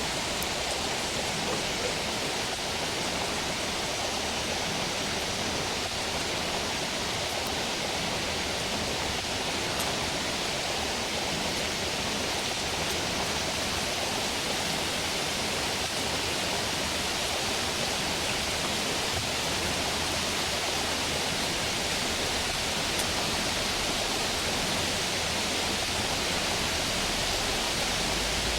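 Stream water flowing, a steady, even rushing with no change in level.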